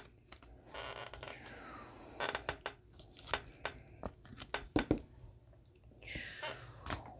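A trading card and rigid plastic top loaders being handled: scattered light plastic clicks and taps, with a sliding scrape about a second and a half in and another about six seconds in as the card slides against the plastic.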